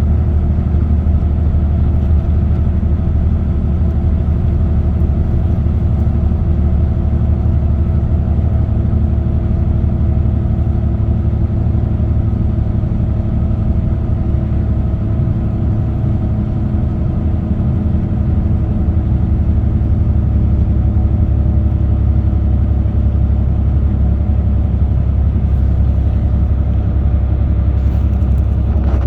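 Car cruising on an expressway: a steady low rumble of road and tyre noise with a faint, even engine hum.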